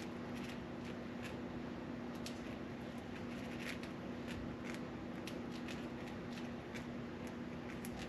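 Budgie moving about its cage: a string of irregular light clicks and scratches over a steady low hum.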